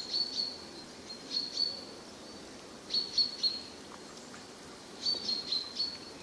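Birds chirping: four clusters of short, high chirps, about every one and a half to two seconds, over a faint steady hiss.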